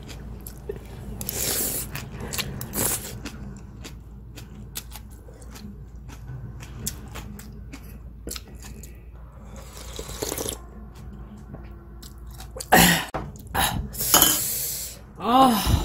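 Someone eating bean sprout soup with a metal spoon: chewing the crisp sprouts, and the spoon clinking and scraping against a ceramic bowl, in scattered short clicks. A brief vocal sound near the end.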